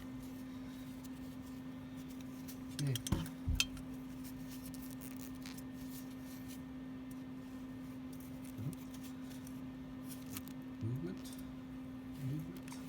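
Wrench on a nut welded to a broken exhaust manifold bolt, giving a few sharp metallic clicks about three seconds in as the bolt is worked back and forth to draw in penetrating oil; the bolt is beginning to move. A steady low hum runs underneath.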